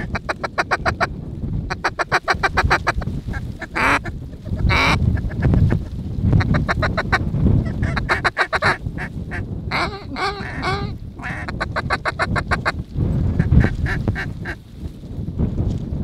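Quick runs of duck quacks, about eight a second, in several series, broken by a few longer drawn-out calls, over a steady wind rumble on the microphone.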